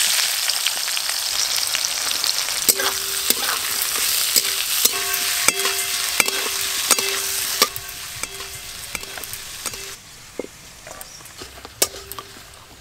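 Chopped onion sizzling loudly in hot oil in a metal karai, stirred with a metal spatula that clinks and scrapes against the pan and sets it ringing. The sizzle eases after about eight seconds as the onion settles into frying.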